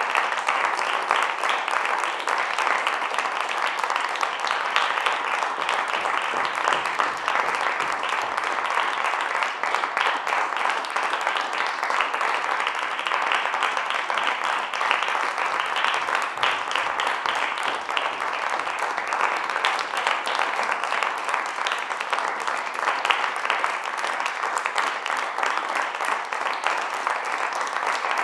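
Audience applause: many people clapping in a dense, unbroken patter that holds steady throughout.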